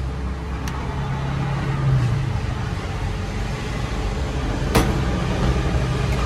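Low, steady rumble of road traffic, swelling as a vehicle passes about two seconds in, with a single sharp click near the end.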